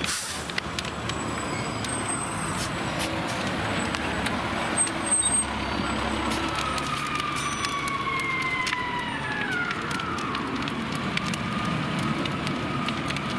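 A fire engine's siren wailing. Its pitch falls slowly from about halfway through, drops faster, then rises and falls again gently near the end. Under it run a steady low engine rumble and many sharp crackles.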